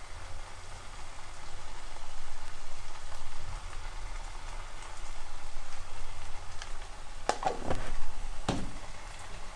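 Spiced tomato and onion masala sizzling and frying in a pan, a steady hiss. Two sharp knocks come near the end.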